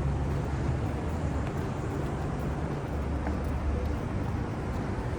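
Car on the move, heard from inside: a steady low rumble of road and engine noise.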